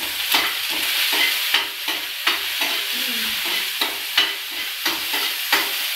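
Chopped shallots and garlic sizzling in hot oil in a small kadai while a spatula stirs and scrapes them, with a scrape every half second or so. They are being sautéed until they just begin to change colour.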